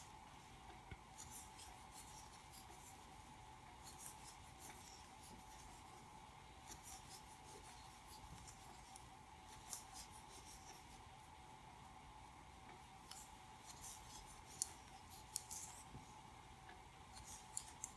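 Faint, irregular scratchy ticks and clicks of a metal crochet hook working single crochet stitches through worsted-weight yarn, with a few sharper clicks near the end, over a faint steady hum.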